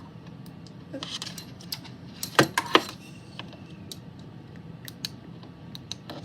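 Handling clatter of small hard objects: a scatter of sharp clicks and taps, with two loud clicks close together about two and a half seconds in.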